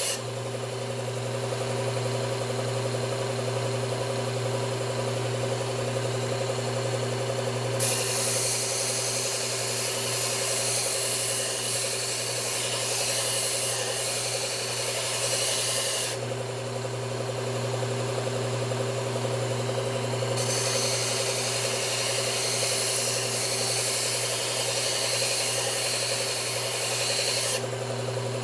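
Belt sharpener motor running steadily with a 120-grit Cubitron belt, as a hatchet edge is ground on it. Two grinding passes, each lasting several seconds, come in as a loud hiss over the hum: one starting about a third of the way in, the other later on.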